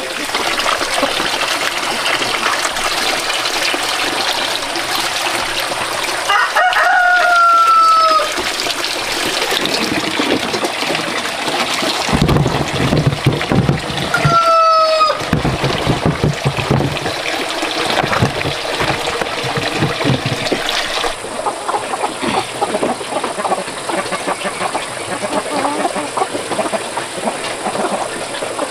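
A rooster crowing twice: a longer crow about six seconds in and a shorter one about fourteen seconds in, each a held call that falls slightly in pitch. Chickens cluck over a busy background throughout.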